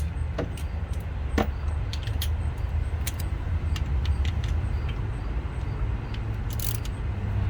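Hand tools clinking and knocking against metal engine parts: a dozen or so scattered sharp metallic clicks, with a quick cluster near the end, over a steady low hum.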